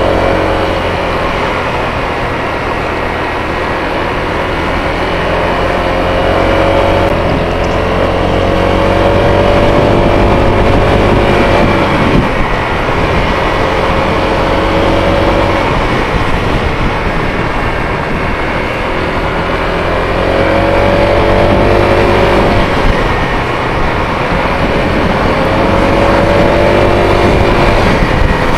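Motorcycle engine running as the bike rides along, over a steady rushing noise. Its pitch climbs slowly and falls off sharply twice, about twelve seconds in and again a little past twenty seconds.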